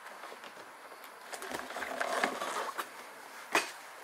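Rustling and scuffing as a person climbs in over a window sill, with a couple of dull bumps, then one sharp knock near the end.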